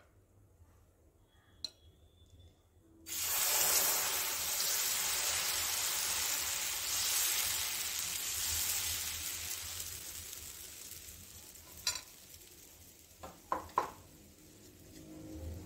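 Instant rava dosa batter hitting a hot tawa and sizzling. The sizzle starts suddenly about three seconds in as the batter is poured and slowly dies down while it is spread and cooks, with a few light clicks near the end.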